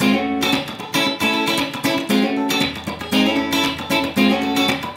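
Electric guitar on a clean amp-modeler preset, bridge P-90 pickup, played through a multi-effects floor unit. It plays a repeating picked chord riff, a new phrase starting about once a second.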